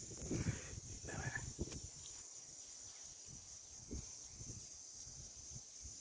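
Steady high-pitched insect chorus, with a few short, soft low noises in the first second and a half.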